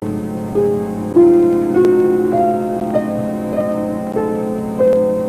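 Background underscore music: a slow melody of held notes on piano-like keys, over a steady low sustained tone.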